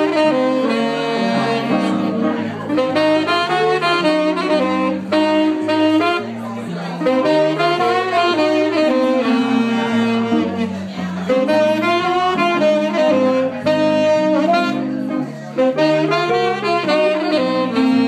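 Live small jazz combo: a saxophone plays the melody over archtop guitar and electric bass, the bass stepping from note to note underneath.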